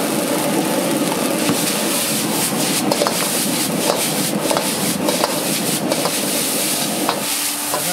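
Metal ladle scraping and knocking irregularly against a wok as rice noodles are stir-fried, over a steady frying sizzle.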